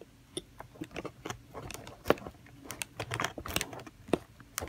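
Hobby knife blade scraping and clicking against a tight nylon zip tie and the hard plastic tray it holds, in small irregular taps and scratches with a sharper click about two seconds in; the blade is not getting under the tie because it is too tight.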